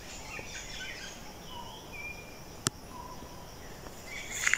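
Forest ambience: a faint steady hiss with scattered short bird chirps and whistles, a single sharp click about two-thirds of the way through, and a busier flurry of chirps near the end.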